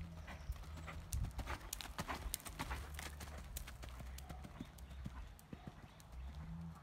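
Hooves of an Oldenburg mare striking arena sand in a quick, uneven run of sharp thuds. The strikes are loudest and closest together a second or two in, as she passes close, and thin out as she moves away.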